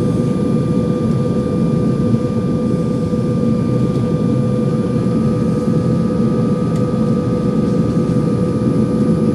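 Airliner cabin noise in flight: a steady drone of the engines and rushing air, with a constant hum. One of the hum's tones steps slightly higher about five seconds in.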